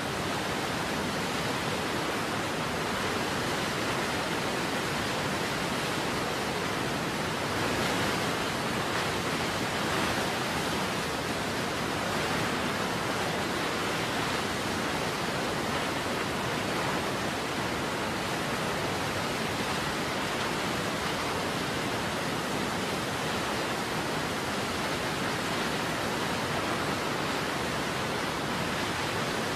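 A large waterfall pouring: a steady, even rush of water noise that does not rise or fall.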